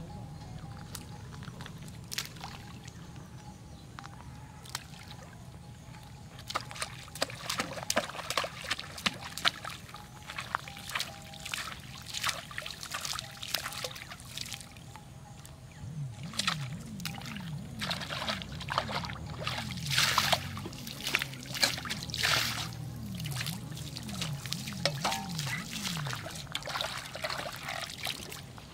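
Water scooped up in a metal plate and flung onto a pond surface, making repeated splashes and pouring sounds that start several seconds in.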